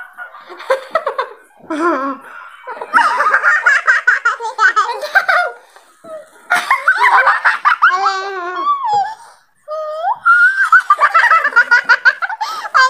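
Young women laughing hard together in long fits of giggles and belly laughs, with two short breaks.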